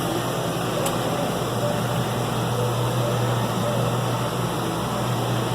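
John Deere 6105M tractor's diesel engine running steadily, heard from inside the cab as a low, even drone with a steady hiss over it.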